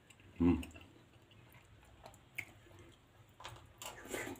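A person eating a spoonful of chicken and quail egg: a short "mm" about half a second in, then soft chewing. A few faint rustles and clicks come near the end.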